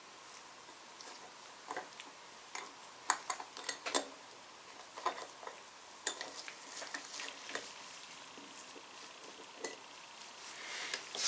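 Small metal parts of a vintage Craftsman ratchet clicking and tapping as they are handled and greased during reassembly, with irregular light clicks and a short scrape near the end.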